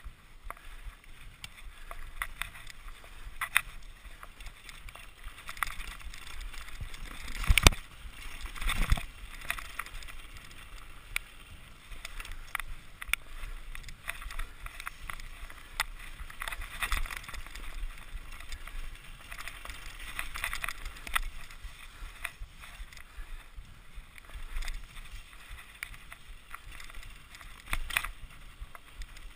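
Mountain bike rolling over a rough dirt trail, picked up by a camera mounted on the handlebars: steady tyre and trail noise with frequent rattles and clicks from the bike, and sharp knocks over bumps, loudest about seven and a half and nine seconds in.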